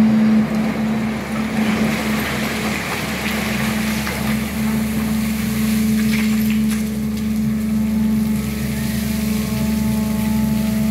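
SANY excavator's diesel engine running steadily while its bucket scrapes and digs into broken rock and mud, with a couple of knocks about six seconds in. A steady whine joins the engine over the last few seconds.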